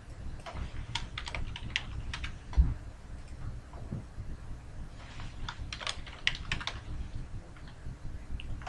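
Typing on a computer keyboard in two quick bursts of key clicks, the second starting about five seconds in, with a single low thump between them about two and a half seconds in.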